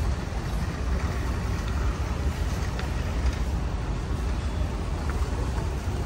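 Steady low rumble of a large warehouse store's background noise, with no speech.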